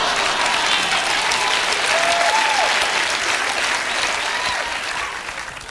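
Studio audience applauding, with a few voices rising above the clapping. The applause fades away near the end.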